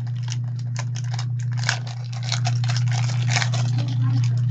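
Trading cards and pack wrappers being handled, a dense run of irregular crinkling, scraping and clicking, over a steady low electrical hum.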